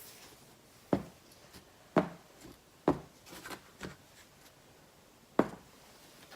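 Sharp knocks of paint cups and supplies being set down and handled on a tabletop: four distinct knocks roughly a second apart, with a few lighter clicks between the third and fourth.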